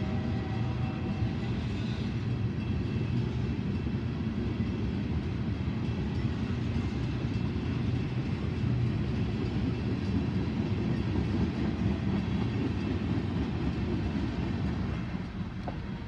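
Freight train tank cars rolling past: a steady rumble of steel wheels on the rails, dropping in level near the end.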